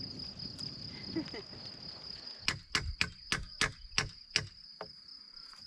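Crickets chirping in a steady high trill, with a run of about eight sharp knocks, roughly three a second, around the middle.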